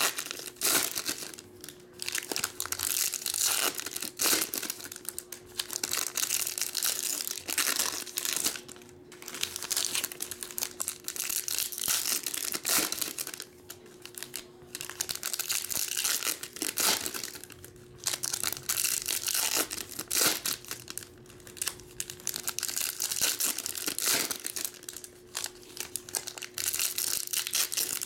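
Foil wrappers of 2021 Topps Chrome WWE trading-card packs being torn open and crinkled by hand, in repeated bursts with short pauses between packs. A faint steady hum sits underneath.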